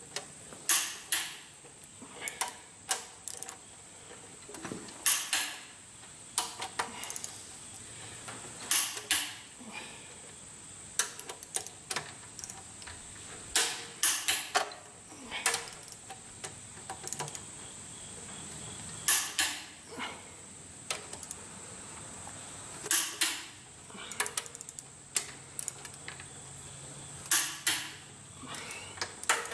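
A ratchet wrench and socket clicking and clinking as the cylinder head bolts of a Cummins 8.3L diesel are tightened one after another, a short cluster of sharp metallic clicks every four to five seconds.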